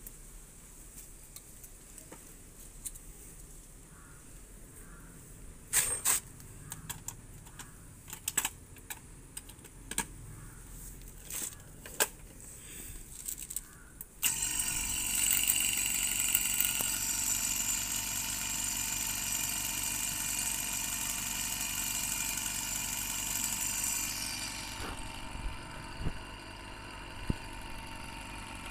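Clicks and knocks of brass hose fittings being handled, then about halfway through an electric refrigeration vacuum pump switches on and runs steadily with a high whine over a motor hum. Its high tones die away a few seconds before the end while it keeps running.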